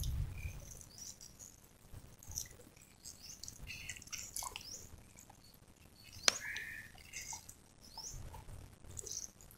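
Small birds chirping faintly around, with soft wet squelches of a bare hand digging into mud near the start and end, and one sharp click about six seconds in.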